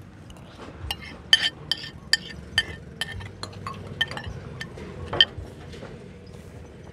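Metal spoons clinking against ceramic plates and bowls while eating: about a dozen light, irregular clinks, two of them louder, about a second and a half in and about five seconds in.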